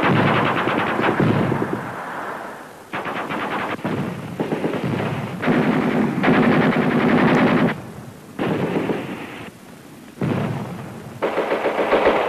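Machine-gun fire in about five bursts of one to two seconds each, with short pauses between them.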